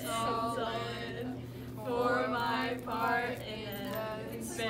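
A group of young voices chanting together in a sing-song way, in phrases that rise and fall in pitch, over a steady low hum.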